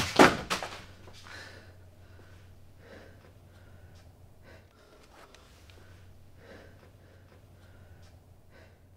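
A man breathing hard and unevenly after shouting, with ragged gasps and sniffs every half second to a second, over a low steady hum. The first half second holds the loud tail of the outburst.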